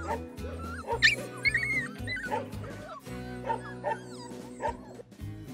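Australian cattle dog puppies yipping and whimpering, with background music held steady underneath.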